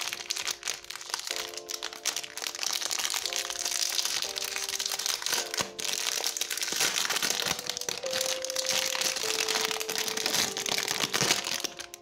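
Clear plastic wrapping crinkling and crackling as it is peeled off a crystal hair eraser, over background music with steady held notes. The crinkling eases off near the end.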